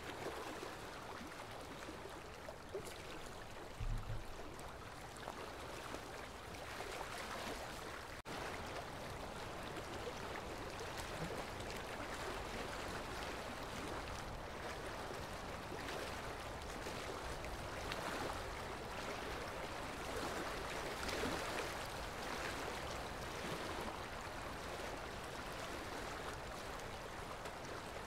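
Steady rushing of running water, like a stream or surf, swelling gently now and then, with a brief low thump about four seconds in.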